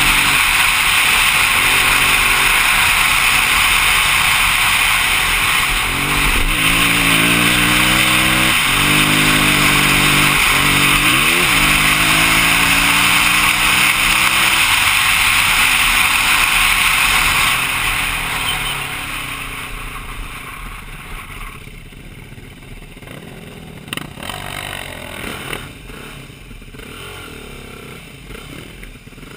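Single-cylinder engine of a BMW G450X dirt bike under way, with heavy wind rush on the microphone. The engine revs up and down several times. About two-thirds through, the wind rush and engine fade to a much quieter level with a few knocks.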